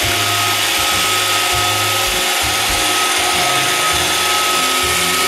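An iRobot Roomba 570 robot vacuum running: a steady high whine from its vacuum and brush motors over a rushing hiss of air, with a low hum that cuts in and out as it drives.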